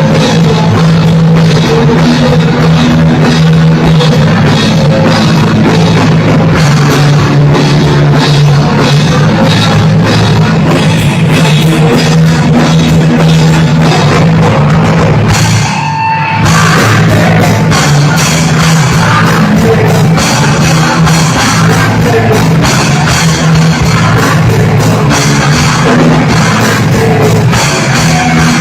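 Punk rock band playing loudly, with a pounding drum kit, distorted guitars and vocals. The music drops out briefly about halfway through, then comes back in.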